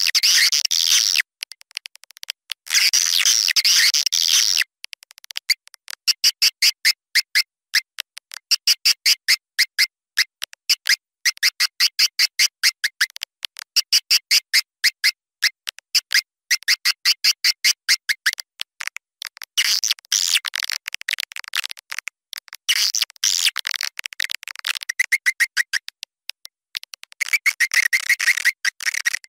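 Swiftlet lure track: swiftlet chirps and twittering, played to call flocks of swiftlets to a nesting house. Bursts of dense twittering alternate with runs of quick repeated chirps at about four a second, with short silent gaps in between.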